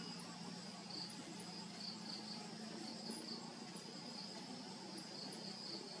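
Crickets trilling steadily at a high pitch, with short, irregular brighter pulses at the same pitch through it.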